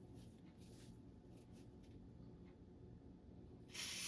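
Near silence, then near the end a short hiss of an aerosol lubricant being sprayed.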